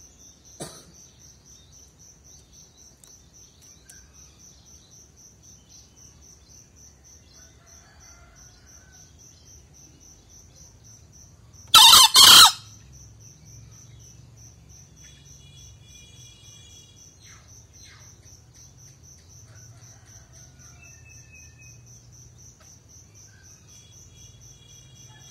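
Male green junglefowl crowing once about halfway through: a short, harsh two-part crow. A steady pulsing chirp of crickets runs underneath.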